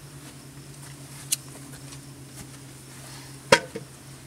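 A steady low hum, with a sharp click a little over a second in and a louder, sharper knock about three and a half seconds in.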